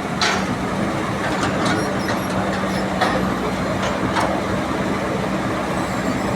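Heavy machinery running at the earthworks: a steady engine drone with a constant low hum, broken by a few short sharp knocks.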